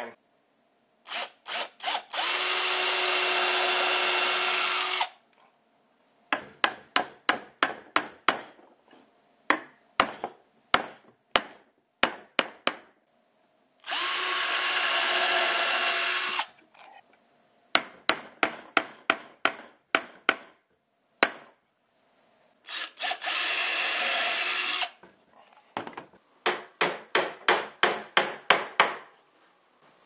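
A cordless drill runs in three bursts of two to three seconds, each followed by a quick run of hammer taps as small wire nails tack square wooden dowels into a wooden frame.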